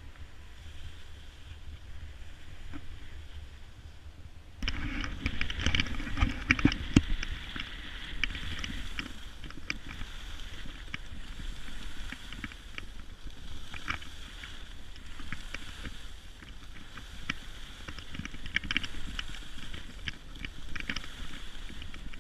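Skis sliding and scraping over packed snow, with wind buffeting the microphone. About four seconds in the sound jumps louder into a busy, continuous scrape with many short clicks and chatters from the edges on the hard snow.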